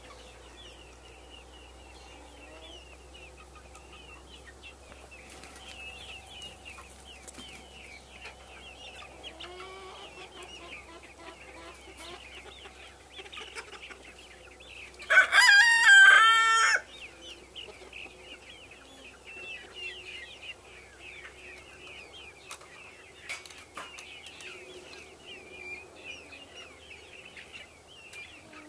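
A poultry flock clucking and chirping, a steady chatter of short high calls, with one loud rooster crow about halfway through.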